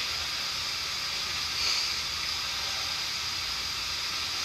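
Steady hiss, with a slight swell about one and a half seconds in.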